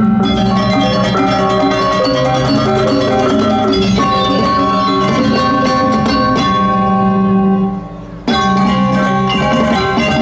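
Balinese gong kebyar gamelan playing a tabuh kreasi instrumental piece, with bronze metallophones ringing in dense interlocking patterns over low gong tones. About eight seconds in the music drops away briefly, then the whole ensemble comes back in at once.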